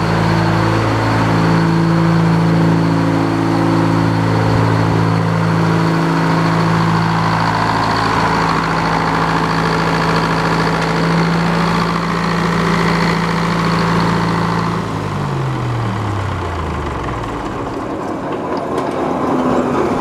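Sawmill's engine idling steadily with a faint high whine; about 15 seconds in it is shut off and its note drops away as it slows to a stop.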